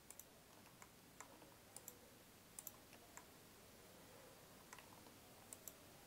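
Faint computer mouse clicks, about a dozen at uneven intervals, some in quick pairs, as surfaces are selected one by one in CAD software.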